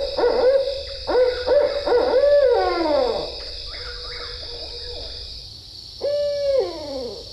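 Barred owls calling excitedly: a run of wavering hoots that ends in long downward slides about three seconds in, then one more hoot near the end that drops in pitch. This is the riled-up caterwauling that sounds like monkeys in the trees.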